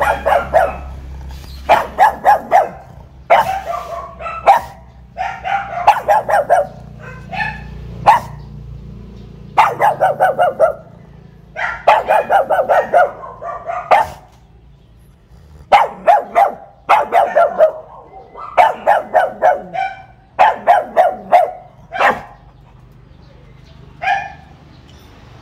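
Pug barking in repeated bouts of several quick barks, with short pauses between bouts, at a person teasing it.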